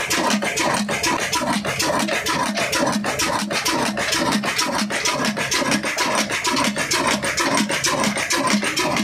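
Old Ruston stationary diesel engine running steadily, with a fast, even mechanical clatter of several sharp knocks a second.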